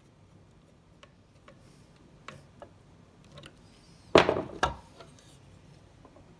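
A few faint clicks of a screwdriver working a terminal screw, then, about four seconds in, a loud short clatter as a screwdriver is set down on a wooden workbench.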